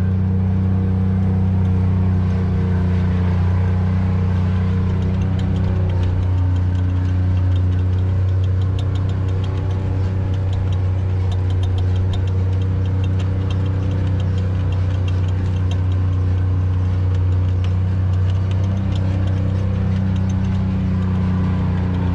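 Side-by-side utility vehicle's engine running at a steady speed, heard from on board while driving along a sandy track.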